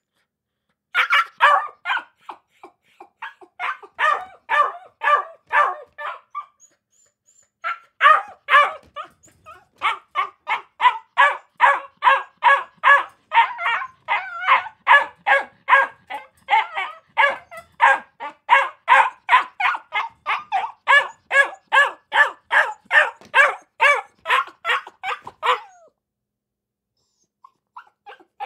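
Akita puppies barking in quick runs of short, high yaps, about three or four a second, with a pause of a second or two twice.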